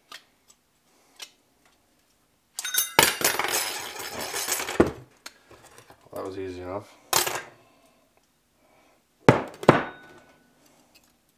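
Steel clutch parts, bearings and races, clinking and clattering against each other and on a workbench as they are handled and set down. A long stretch of metallic rattling comes a few seconds in, then sharp clanks, the last two close together near the end. A short low hum with a wavering pitch sounds just past the middle.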